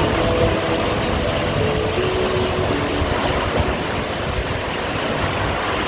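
Waterfall rushing with a steady, loud roar of falling water.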